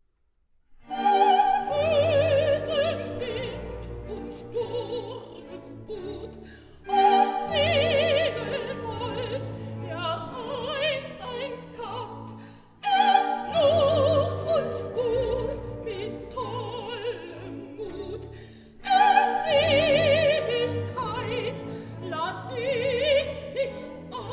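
Operatic soprano singing with wide vibrato over a full orchestra. After about a second of silence come four loud phrases, each starting about six seconds after the last.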